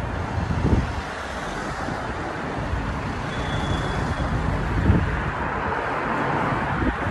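Road traffic passing close by on a busy road: cars and a delivery van going by with a steady rumble of engines and tyres.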